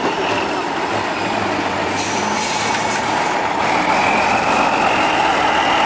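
Tatra 815 8x8 trial truck's diesel engine running steadily under load as the truck crawls across a steep dirt slope, with a short burst of air hiss about two seconds in.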